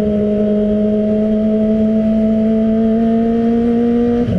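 Kawasaki ZX-25R's 250 cc inline-four running at high, steady revs under way through an Arrow aftermarket exhaust. Its pitch creeps slowly upward, then there is a brief break near the end, after which it settles at a lower pitch.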